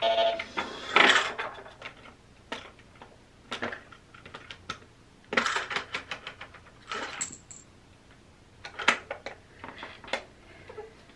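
Irregular light clicks and clatter of a toy vending machine and its small plastic drink bottles and toy coins being handled, with the busiest clatter in the first second or so.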